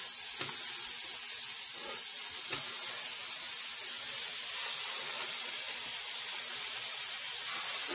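Balls of ground beef sizzling on an electric flat-top griddle heated to about 375°F: a steady high hiss, with a few faint taps as more balls are set down.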